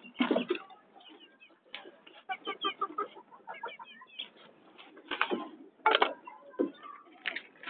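A hen making many short, soft clucks and chirps while pecking at feed, with sharp pecking taps scattered through.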